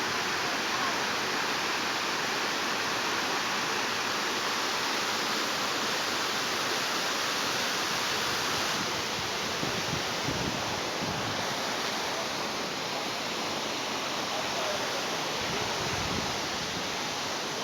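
Waterfall: a steady, even rush of falling water, its tone shifting slightly about nine seconds in.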